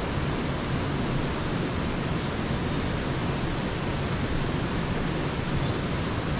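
Steady rushing of flowing river water, an even, unbroken noise.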